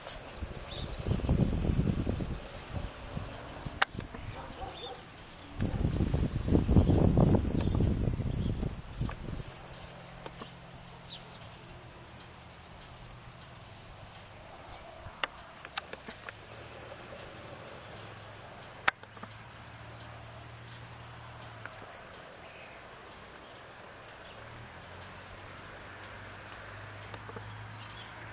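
Insects chirring in a steady high-pitched drone. Two spells of low rumbling in the first nine seconds are the loudest sounds, with a few sharp clicks and a faint low hum after.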